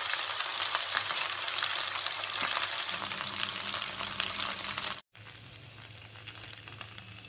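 Chopped okra sizzling and crackling as it fries in oil in a frying pan, stirred with a slotted spatula. The sizzle drops abruptly quieter about five seconds in.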